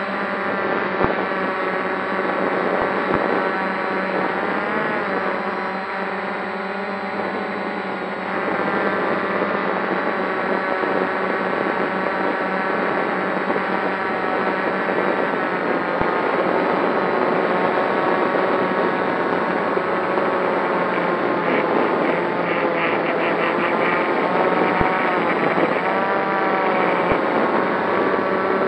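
Multirotor drone's electric motors and propellers whirring, heard from its on-board camera, with a stack of tones wavering up and down as the motors change speed. It is climbing with a maximum payload of dual batteries.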